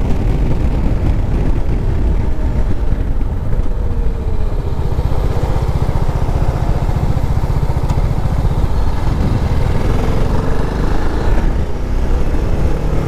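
TVS Apache RR310's single-cylinder engine under heavy wind rumble on the microphone, easing off as the bike slows for a bend about four seconds in, then pulling again as it speeds back up.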